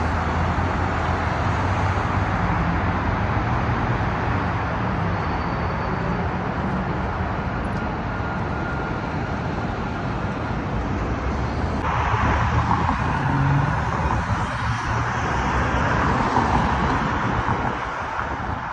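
Street traffic: a steady hum of cars driving past, getting louder for a few seconds about twelve seconds in.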